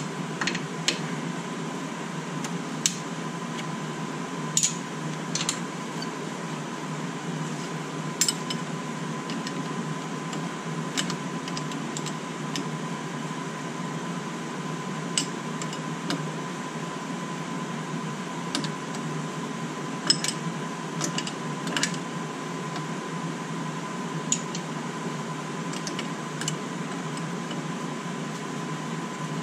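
Scattered light metallic clicks and taps as a new brake line and its fitting are handled at the front brake caliper, over a steady mechanical hum with a thin, steady whine.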